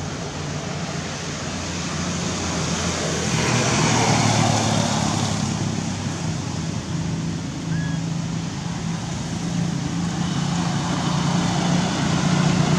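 A motor vehicle's engine hum, steady and low, under general outdoor background noise, swelling loudest about four seconds in.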